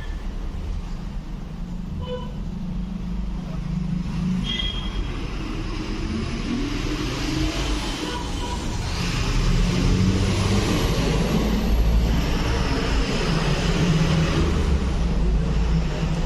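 Motor vehicle rumble, like road traffic passing close by, growing louder about nine seconds in and easing after about fourteen seconds.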